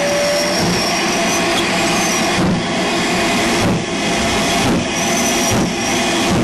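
Train running on the heritage line: a steady loud rumble of wheels on track, with a faint knock about once a second and thin high wheel squeals now and then.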